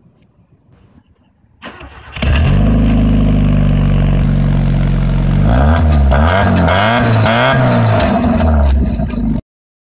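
Car engine started through a tall exhaust pipe fitted with a flapper cap: it catches about two seconds in, idles steadily, then is revved up and down several times before cutting off suddenly near the end.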